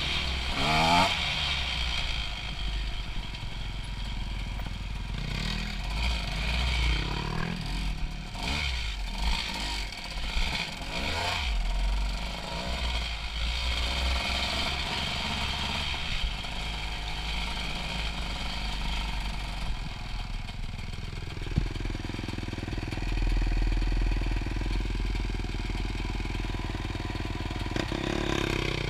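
Honda CRF250 dirt bike's single-cylinder four-stroke engine through an HGS aftermarket exhaust, revving up and down while riding a rough trail, with clattering from the bike over the stones. In the last third it settles to a steady lower note.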